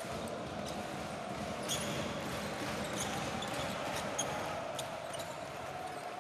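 A basketball being dribbled on a hardwood court, with sneakers squeaking briefly a few times, over the steady noise of an arena crowd.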